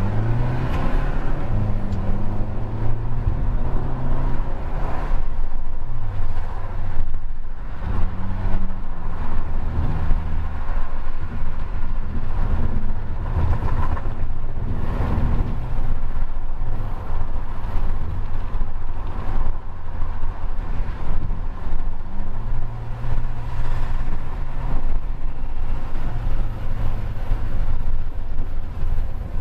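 Cabin sound of a VW Jetta 2.0 TSI's turbocharged four-cylinder engine running under way, with steady road rumble. The engine note shifts in pitch several times as the car speeds up and changes gear.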